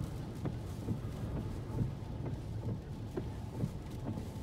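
Hurricane-strength wind buffeting the microphone: a continuous low rumble broken by frequent irregular gust thumps.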